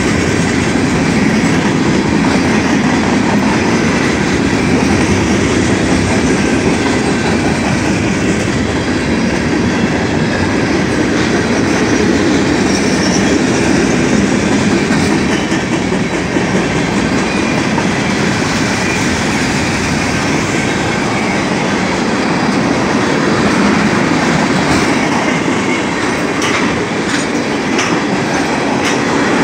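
Freight cars rolling past close by: a loud, steady rumble of steel wheels on rail with the clickety-clack of wheels over the rail joints, the clacks sharper near the end as tank cars go by.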